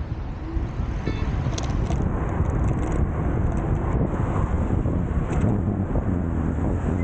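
Rumbling wind and road noise from riding an electric scooter, building over the first few seconds and then holding steady, with a few faint clicks.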